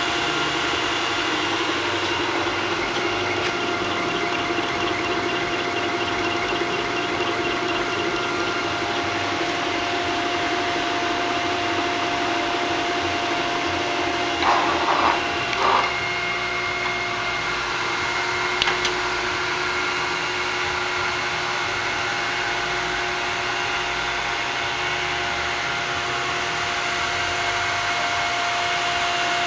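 1978 Kellenberger UR175-1000 universal cylindrical grinder running under power, a steady machine hum with a constant whine. A few brief clunks come about halfway through.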